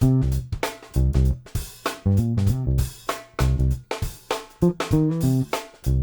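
Electric bass guitar strung with Markbass strings playing a groove of short, punchy low notes with sharp attacks, with a drum beat behind it.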